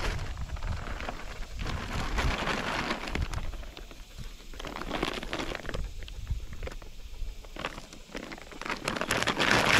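Large plastic sack of shelled corn feed, about 50 lb, crinkling and rustling as it is lifted and turned, with the corn shifting inside, in several bursts.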